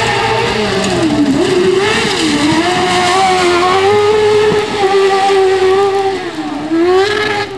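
Autocross buggy engine revving hard on a dirt track. Its pitch dips and climbs again several times as the throttle comes off and back on through a corner, then rises near the end.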